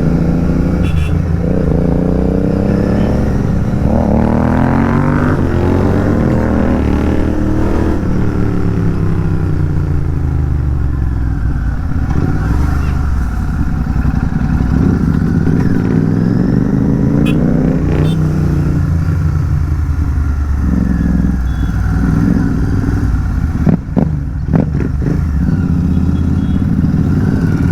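A Royal Enfield 650 parallel-twin motorcycle with an aftermarket exhaust is being ridden hard, its note climbing in pitch through the gears and dropping at each shift. A couple of sharp pops come near the end.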